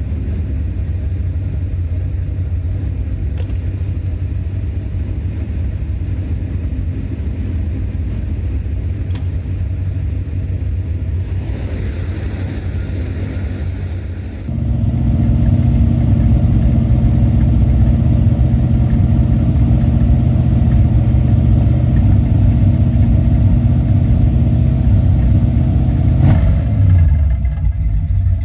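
1981 Corvette's 350 V8 idling steadily while it warms up. About halfway through it steps up louder and fuller, and near the end it briefly dips with a falling pitch before settling again.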